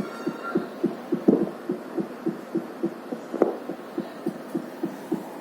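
A fetal Doppler's loudspeaker plays a simulated fetal heartbeat at the 210 beats-per-minute test point, a rapid, even pulsing of about three and a half beats a second over a faint hiss. A sharper click comes about three and a half seconds in.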